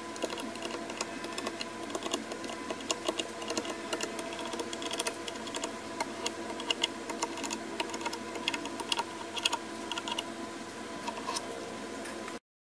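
A cloth or paper towel wiped by a gloved hand over the sanded wooden centerboard, making scattered light ticks and rustles over a faint steady hum. The sound cuts off suddenly near the end.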